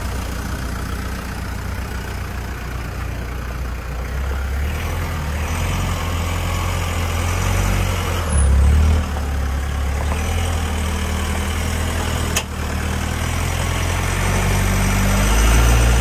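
Jeep Nukizer 715 concept truck's Hemi V8 running at low revs as it crawls up steep rock, swelling briefly about eight seconds in and again near the end. A single sharp click about twelve seconds in.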